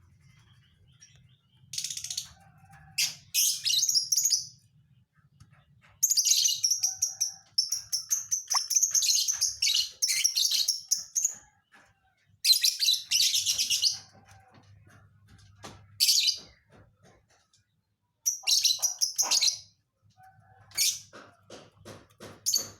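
A small parrot chirping in repeated bouts of rapid, high-pitched chatter, with short pauses between them.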